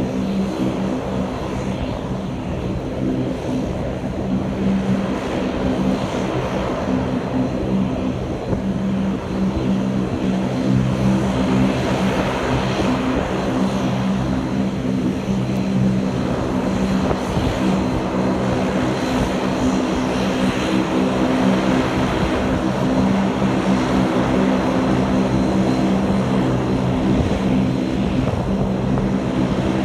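Aircraft engines running with a steady, multi-toned drone, over gusty wind buffeting the microphone.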